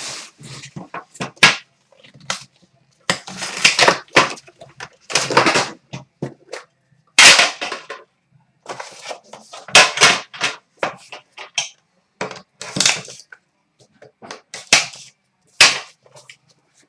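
Sealed trading-card box being torn open by hand: an irregular run of crinkling, ripping plastic wrap and cardboard rustles, some loud and sharp.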